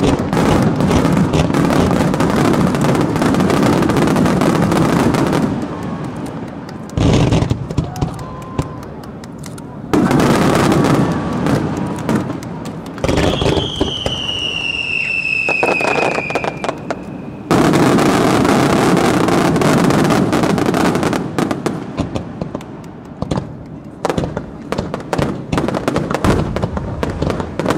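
Fireworks display: volleys of aerial shells and ground fountains banging and crackling densely, broken by short lulls with single booms. In the middle a whistling firework gives one long whistle that slowly falls in pitch, then a fresh dense volley begins.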